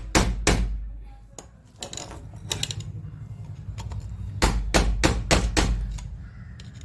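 Repeated hammer blows, about three or four a second, knocking on a stuck part inside a rotary hammer drill to drive it loose; one short run at the start and another midway, with lighter clicks and handling noise in between.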